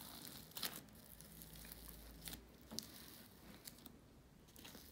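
Faint sticky crackles and small clicks of fluffy, glitter-covered slime being kneaded and stretched by hand, with a few sharper pops among them.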